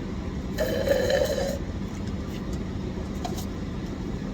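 Steady low rumble of a vehicle engine idling. About half a second in, a brief sound about a second long with a clear tone rises above it.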